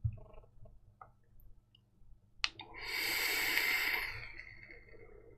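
A sharp click, then an airy hiss of about two and a half seconds as a person draws hard on an e-cigarette fitted with a Zeus Dual rebuildable tank atomizer, a 0.19-ohm coil at 50 watts. The hiss fades near the end.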